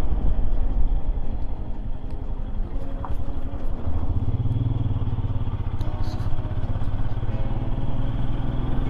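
Royal Enfield Himalayan's 411 cc single-cylinder engine running while riding, with low rumble throughout. From about halfway a steady engine hum settles in, and near the end it rises slightly in pitch.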